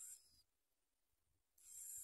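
Bar-winged prinia nestlings begging with thin, high-pitched hissing calls in two short bursts. One fades just under half a second in, and the next starts about a second later.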